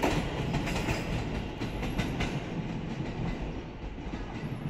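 A passing train's wheels clacking over the rail joints as it moves away, the sound fading steadily.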